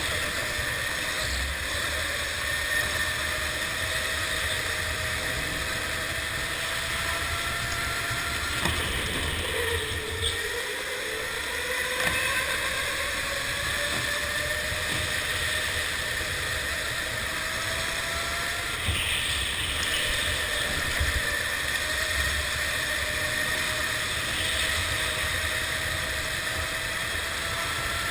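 Electric go-kart motor whining under the driver, its pitch climbing over several seconds as the kart accelerates, dropping about ten seconds in as it slows for a corner, then climbing again. A steady low rumble of wind and vibration on the onboard camera runs underneath.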